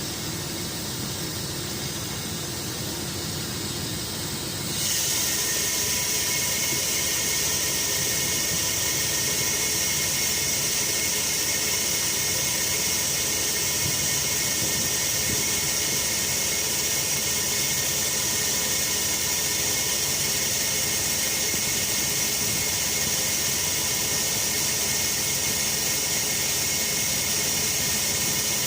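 Steady mechanical hiss with a thin high whine, typical of a truck-mounted crane's hydraulics working under load. It steps up in level about five seconds in and then holds steady.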